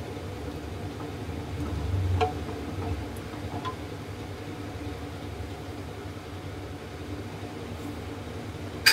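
A spatula gently stirring rice into boiling curry in an aluminium pressure cooker: a few soft taps against the pot in the first four seconds over a steady hiss, and one sharp click just before the end.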